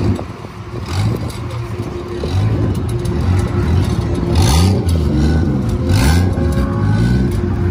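Turbocharged engine of a crash-damaged Nissan 240SX drift car running and revving in repeated short rises and falls, strongest in the second half.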